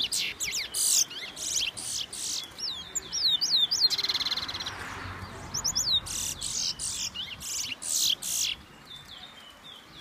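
Caged songbirds singing: quick runs of high chirps and sweeping whistled notes, with a rapid trill about four seconds in. The singing stops near the end.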